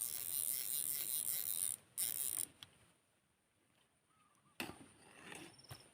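Fishing reel cranked in two spells, a rasping mechanical whir of about two seconds and then a short half-second one, followed near the end by a brief rustle and a low knock.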